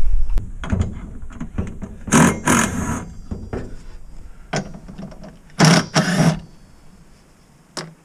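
Cordless power driver whirring in four short bursts, two pairs about three seconds apart, as it spins a socket on a windshield wiper arm nut. Light clicks and knocks of the tool being handled fall between the bursts.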